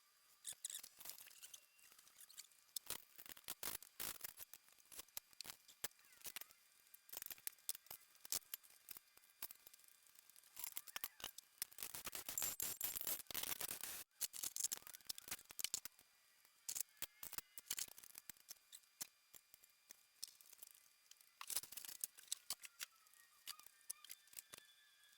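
Hand tools at work on a Honda K24 engine teardown: sharp, irregular metal clicks and clinks, with a dense run of rapid clicking about halfway through.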